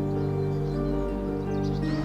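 Calm background music of long held notes, with faint short high chirps above it near the end.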